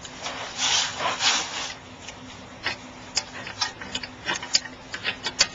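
Metal scraping as a rear brake caliper is pried and wiggled off its rotor, then a quick run of light clicks and knocks.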